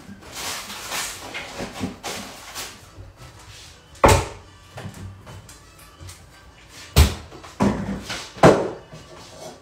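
Kitchen clatter: rustling for the first few seconds, then sharp knocks from cupboard doors and kitchen things being handled and set down on a counter. The loudest knocks come about four and seven seconds in.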